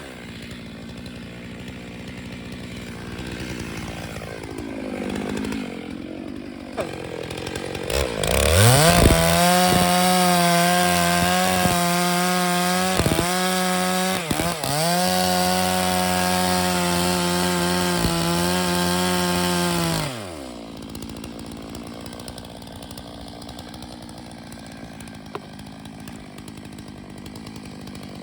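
Chainsaw idling, then revved up to full throttle about eight seconds in and held there steadily for some twelve seconds with two brief dips, before dropping back to idle.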